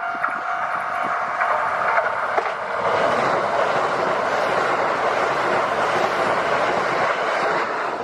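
Kintetsu Nagoya Line train passing over a level crossing: wheels clacking on the rails, then a dense rushing noise that swells about three seconds in and holds as the cars go by.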